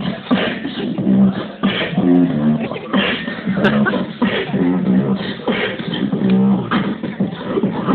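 Live beatboxing through a small portable speaker: a steady beat of mouth-made kicks and snares with pitched bass hums recurring about once a second.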